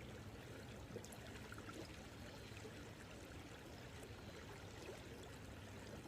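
Faint, steady sound of a high, flowing creek current.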